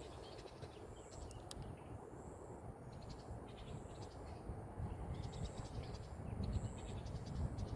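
Outdoor insects calling: a short high buzz repeating about every second and a quarter, with trains of fast ticking between, over a low rumble that grows a little louder near the end.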